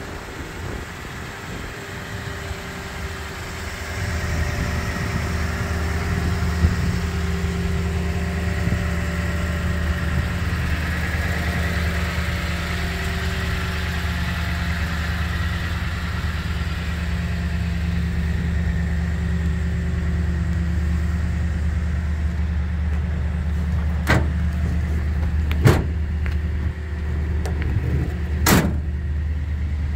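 2016 Toyota Tundra pickup's engine idling steadily, a low hum that gets louder about four seconds in. A few sharp clicks near the end.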